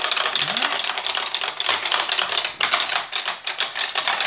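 Rapid, continuous clicking of the Hydro Strike game's plastic buttons being pressed over and over by two players at once.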